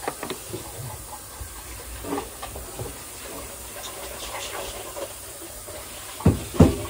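Tap water running steadily into a bowl of ice, with two thumps about a third of a second apart near the end.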